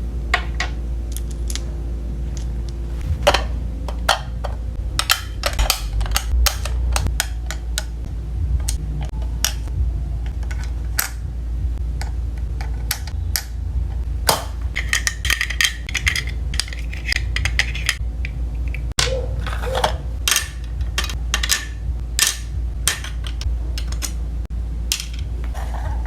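Small hard plastic toy pieces and packaging being handled: scattered clicks and light taps, with a burst of plastic crinkling about fifteen seconds in, over a steady low hum.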